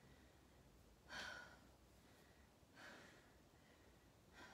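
Faint breaths from a woman holding a wall sit: two exhalations, about a second and about three seconds in, and a softer one near the end, with near silence between.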